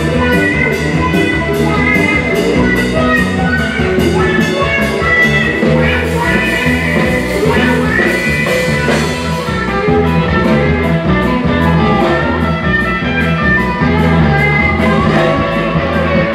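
Live country-rock band music led by an electric lap steel guitar played with a steel bar, its notes sliding up and down in pitch, over bass and drums keeping a steady beat.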